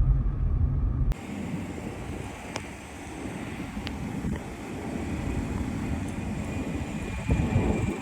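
A low vehicle engine rumble cuts off abruptly about a second in. It is followed by steady wind noise on the microphone, with a couple of faint clicks.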